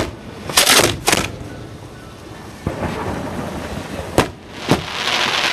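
Fireworks shells launching and bursting at close range: a string of sharp booms, a couple of them drawn out, with a rising crackling hiss near the end.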